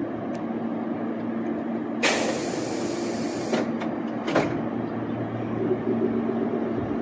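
Meitetsu electric train standing at the platform, its equipment humming steadily. About two seconds in, a loud hiss of compressed air lasts about a second and a half, followed by a few clunks.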